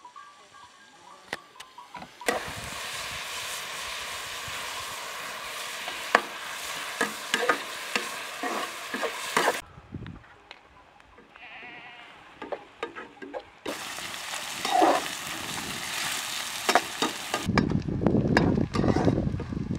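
Sliced onions sizzling as they fry in a metal pan, with the clicks and scrapes of a spoon stirring. Later, a flock of sheep and goats bleats, loudest near the end.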